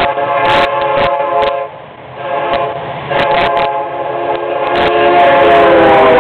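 Air horn of a Florida East Coast Railway freight locomotive, lead unit EMD SD70M-2 No. 101, sounding a chord at a grade crossing. One long blast cuts off about a second and a half in, and a second long blast starts about three seconds in. The second blast drops slightly in pitch as the locomotive passes close by.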